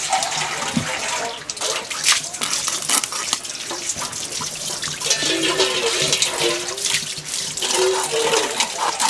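Scales being scraped off a tilapia against the edge of a bonti blade: a continuous run of quick, scratchy strokes. A wavering pitched sound comes in over it from the middle to near the end.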